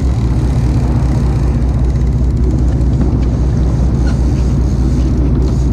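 Fishing boat's engine running steadily with a loud, low hum.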